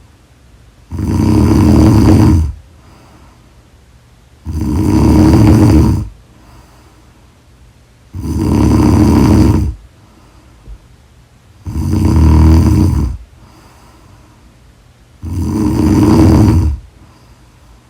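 Loud, regular snoring of someone asleep: five long snores, one about every three and a half seconds, each lasting about a second and a half, with quiet gaps between.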